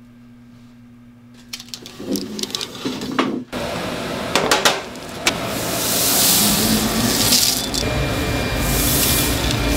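Metal baking trays clicking and knocking as they are handled at the oven. From about halfway through, a loud steady rasping rush follows as roasted chopped nuts slide off a tray into a large bowl of rice-cake dough.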